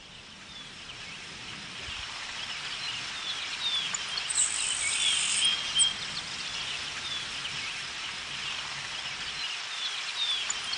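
Outdoor nature ambience fading in: scattered short bird chirps over a steady background of natural noise, with a high insect trill lasting about a second near the middle.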